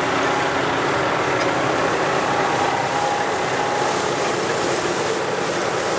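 Farm tractors working in a field: a steady, dense engine and machinery noise with faint steady tones running through it.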